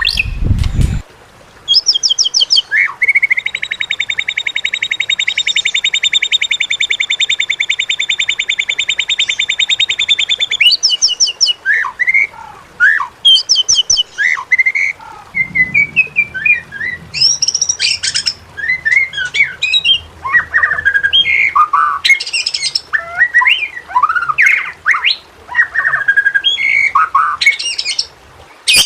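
White-rumped shama (murai batu) singing: a long, fast rattling trill of about seven seconds, then a run of short, varied whistles and chattering phrases. There is a brief low thump at the very start.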